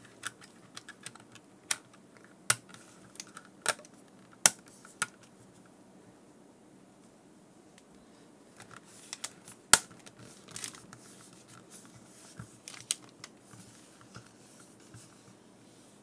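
Plastic clicks and snaps as the front bezel of a Garmin StreetPilot C340 GPS is pressed by hand back onto its housing. Irregular sharp clicks, with two louder snaps about four and a half and ten seconds in.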